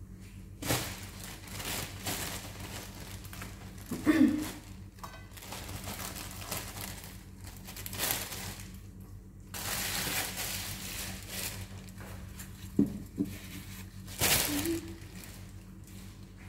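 A plastic bread bag crinkling in intermittent bursts as it is handled and opened, with a few short knocks, over a steady low hum.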